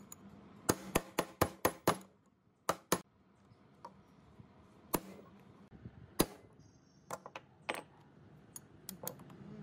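Hammer blows on metal against a rusty hand saw frame clamped in a bench vise. A quick run of about six sharp strikes comes first, then a few spaced single blows and lighter taps.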